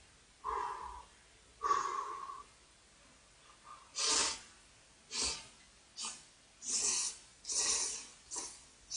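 Thick, chewy instant beef-soup noodles being slurped up from chopsticks: a string of six or seven short, sharp slurps in the second half, after two shorter, lower-pitched sounds in the first couple of seconds.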